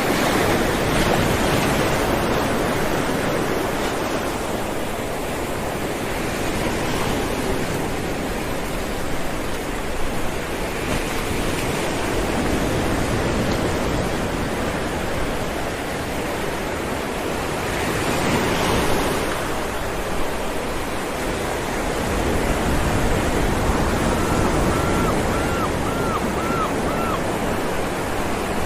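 Ocean waves rolling in and breaking on rocks: a continuous rushing surf that swells and falls, with heavier surges about a second in and about two-thirds of the way through. Near the end a bird gives five short, evenly spaced chirps.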